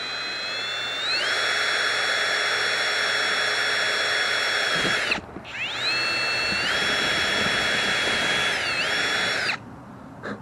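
Cordless drill running in two long runs of about five and four seconds with a short stop between, its motor whine stepping up in speed about a second in and dipping briefly under load near the end of the second run, as it bores through the cart frame's pipe tee and the nipple inside it. A small click near the end.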